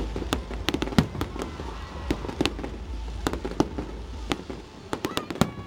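Aerial fireworks display: a rapid, irregular run of sharp cracks and pops from bursting shells, the loudest about a second in, over a steady low rumble.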